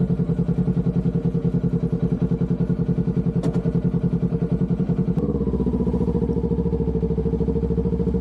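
Kawasaki Ninja 400 parallel-twin engine running at idle with an even, rapid pulse, with a single click about three and a half seconds in. A little past five seconds the note turns smoother and deeper as the bike pulls away.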